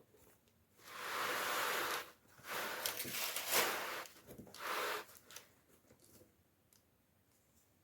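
Toy packaging being torn and rustled open by hand: three rasping tearing stretches within the first five seconds, with a few sharp clicks among them, then only faint handling taps.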